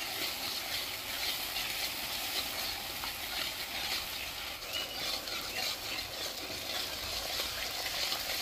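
Chillies and onions sizzling in hot oil in a metal wok, with a spatula stirring and scraping against the pan in a steady scratchy rhythm.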